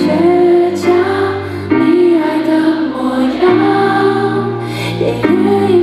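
A woman singing a slow ballad into a microphone over backing music, holding long wavering notes while the low notes of the accompaniment change every second and a half or two.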